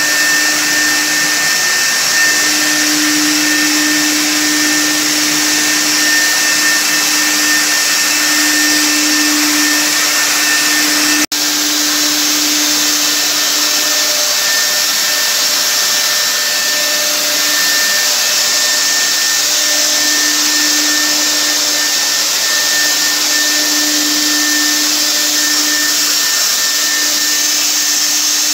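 Handheld electric ULV cold fogger running steadily while spraying disinfectant mist: its blower motor gives a loud, even hiss with a steady hum and a thin whine. The sound breaks off for an instant about eleven seconds in.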